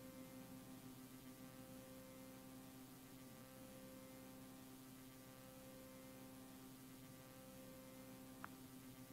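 Near silence: a faint steady hum and hiss from a blank stretch of videotape, with one short tick near the end.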